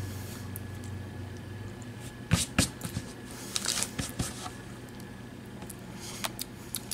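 Scattered short rustles and clicks as a crumbling snack cake and its plastic wrapper are handled. A faint low hum stops about two seconds in.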